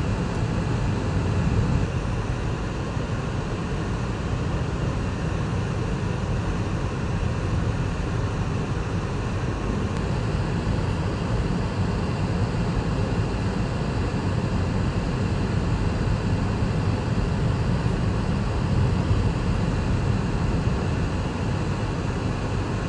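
Steady in-cabin road noise of a car driving on a snow-covered road: a low, even rumble of tyres and engine.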